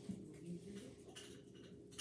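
Quiet room tone with a faint steady electrical hum and a few faint ticks.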